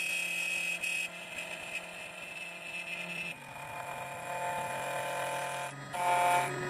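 CNC key cutting machine running as it cuts the second side of a key blank: a steady motor whine whose tones shift several times as the cutter moves along the key.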